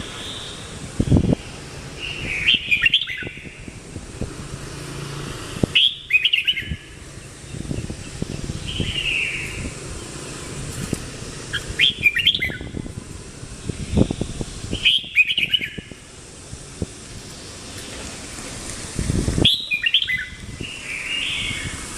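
Red-whiskered bulbul singing short, rich whistled phrases, repeated every two to three seconds, with a few low thumps in between.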